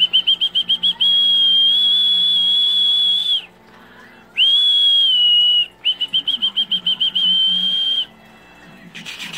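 A shrill high whistle blown in turns: a quick run of trilled pulses, a held note of about two and a half seconds, a shorter held note after a pause, then another trilled run ending in a held note, cutting off sharply about a second before the end.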